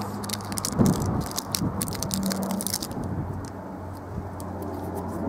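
Release backing being picked at with a knife tip and peeled off a strip of Flashband self-adhesive flashing tape: irregular small crackles and scrapes, with a low steady hum underneath.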